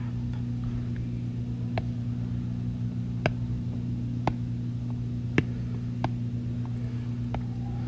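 Steady low electrical hum made of several level tones, with about six sharp clicks at uneven intervals of roughly a second.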